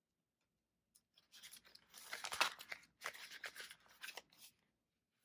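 Paper banknotes and a clear vinyl binder envelope rustling and crinkling as cash is handled in the plastic pocket. The rustling starts about a second in, is loudest in the middle and dies away shortly before the end.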